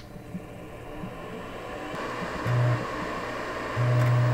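An old PC starting up through its memory check: the fan and drives spin up to a steady whir, with two low mechanical buzzes, one about two and a half seconds in and a longer one near the end.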